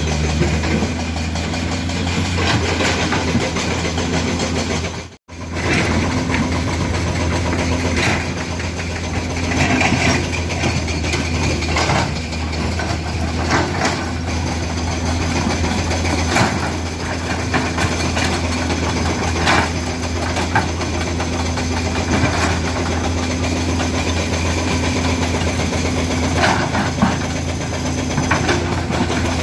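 Komatsu PC200 excavator's diesel engine running steadily under load, with scattered clanks and scrapes as the bucket works through broken rock. The sound cuts out for a moment about five seconds in.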